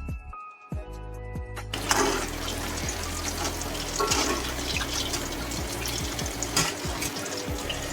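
Hot oil sizzling and crackling as chicken and potatoes fry, starting suddenly about two seconds in, over background music with a steady beat.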